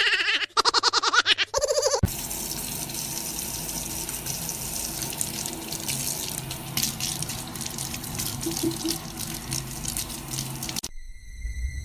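Water running steadily, like a tap into a sink, with scattered ticks; it stops suddenly near the end and a steady high tone takes over. Before the water, a short run of rapidly pulsing pitched sounds.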